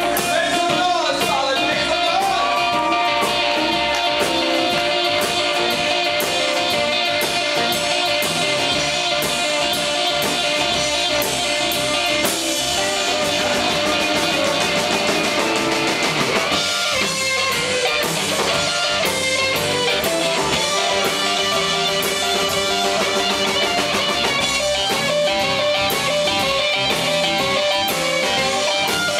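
Live blues-rock band playing, with a Stratocaster-style electric guitar playing lead over drums and bass guitar.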